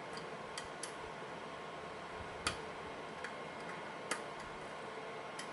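A lock pick working the pins of a custom pin-tumbler lock during single-pin picking: a scatter of small, irregular clicks as the pins are probed and set, the loudest about two and a half seconds in, over a steady hiss.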